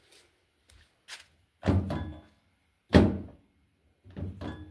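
Three sharp metal thunks, the loudest about three seconds in: the fuel filler flap of a 2012 Toyota Hilux being pushed shut against its latch. It is the test of a freshly soldered release cable.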